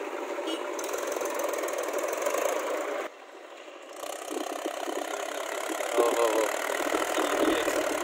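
Mahindra farm tractor's diesel engine running, pulling away and climbing over a soil mound. The sound drops away for about a second around three seconds in, then comes back fuller.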